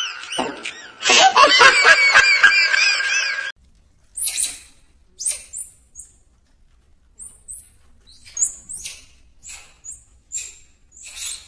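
A baby's giggling laughter that cuts off suddenly, then a string of short, very high-pitched squeaks from a baby macaque, more than a dozen spaced less than a second apart.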